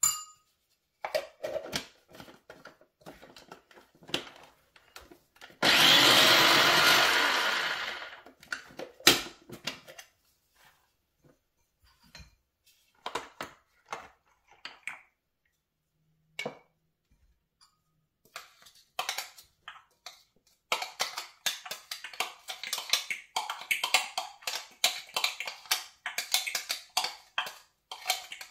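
An electric mini food chopper runs once for about two seconds, chopping onion and herbs; it starts abruptly and dies away as it stops. Around it come scattered clicks and knocks of its plastic bowl and lid being handled, and from about two-thirds of the way through a rapid run of small clicks and clatter.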